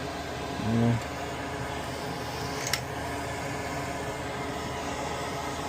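Steady fan-like whir from a small motor running in the background. A short hummed voice sound comes just before a second in, and a single sharp click comes near the middle.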